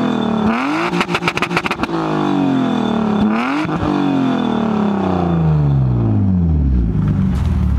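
BMW E36 engine being revved hard through its exhaust: the revs climb and stutter on the rev limiter about a second in, climb again past three seconds, then fall steadily back to idle.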